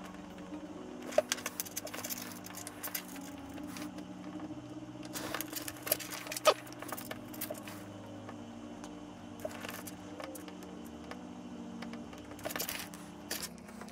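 Light clicks and small metallic taps from hands handling thin wires and a soldering iron on an LED strip while soldering on its leads. They come in irregular clusters, about a second in, around five to six seconds in with the sharpest click, and again near the end.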